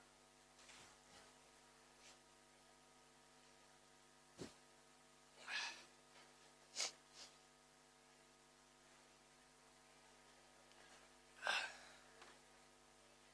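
Near silence with a steady electrical mains hum. A few brief, soft hissing sounds stand out: a click about four seconds in, a few hisses around the middle, and the loudest one near the end.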